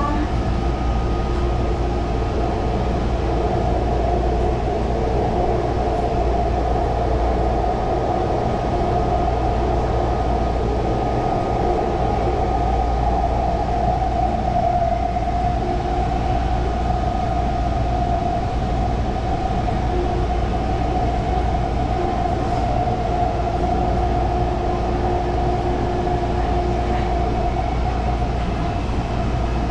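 Taichung MRT Green Line metro train running between stations, heard from inside the passenger car: a steady low rumble with a constant mid-pitched whine over it.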